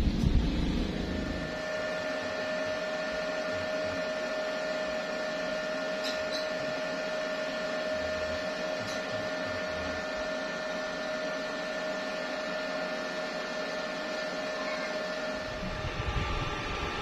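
Steady mechanical hum from a running motor, with a constant high whine over it. Near the end a louder, uneven low rumble comes in.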